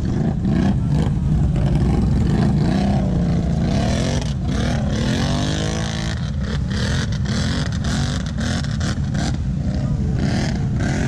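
Off-road vehicle engines running over a heavy low rumble, with revs sweeping up and down around the middle, and scattered sharp crackles.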